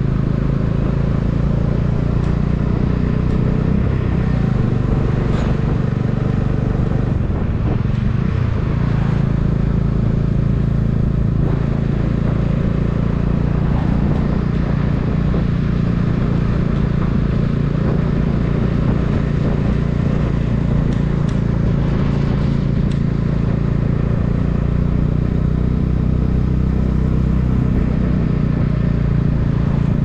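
Bajaj Dominar 400's 373 cc single-cylinder engine and exhaust running steadily while the bike cruises at low speed, around 34 km/h.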